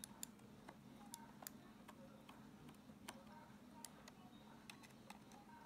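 Faint, irregular small clicks of a precision screwdriver turning the screws in the plastic underside of a Razer Mamba mouse.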